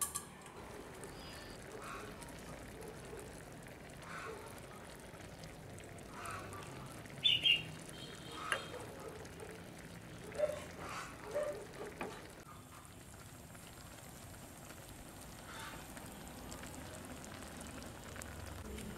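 Poultry calling: several short calls in a cluster, the loudest a quick pair about seven seconds in, over a faint steady background.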